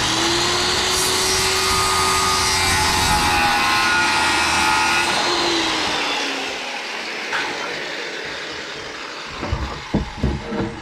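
Electric power saw spinning up and cutting wood for about five seconds, then its motor winding down. Near the end come a few knocks as the cut piece is fitted into place.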